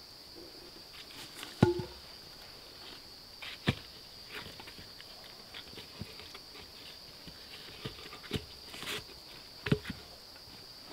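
Cut logs knocked against one another as they are stacked between upright stakes: a few sharp wooden knocks, the loudest about one and a half seconds in with a brief hollow ring, others near four, eight and ten seconds in, with light scuffing and rustling between. A steady high-pitched hum runs underneath.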